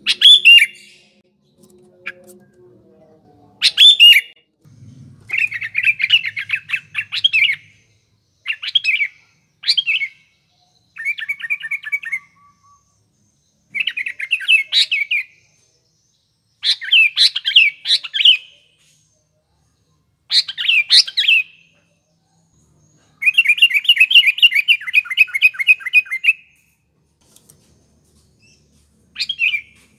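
Sooty-headed bulbul singing: a string of short, quick chirping phrases with brief pauses between them.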